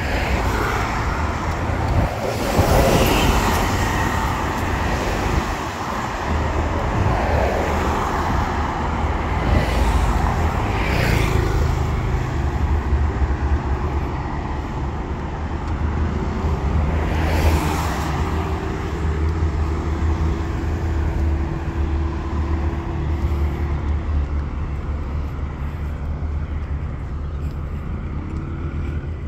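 Steady road traffic noise with a continuous low rumble. Three vehicles pass louder, the first a few seconds in, then two more spread through the first half, and a steady engine hum runs for several seconds after the middle.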